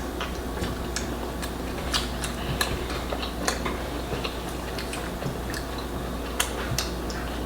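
Close-up eating sounds: irregular small clicks and smacks of mouths chewing and hands working the food, over a steady low hum.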